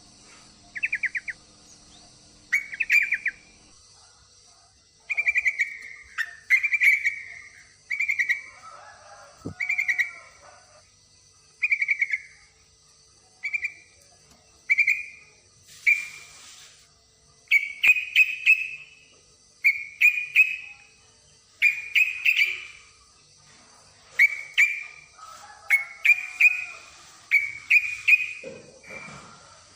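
Yellow-vented bulbul (trucukan) giving short, bubbly chattering calls, one phrase every second or two, billed as a female in breeding condition calling a male. A steady faint high hiss runs underneath.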